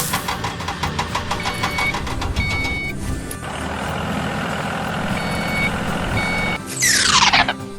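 Vehicle engine running with a reversing-style beep sounding about once a second, then a loud falling whoosh near the end.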